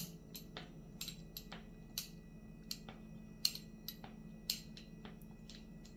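Pizza cutter wheel clicking and scraping against a stone countertop as it makes short slits through soft dough: a series of short, irregular clicks, about two or three a second, over a low steady hum.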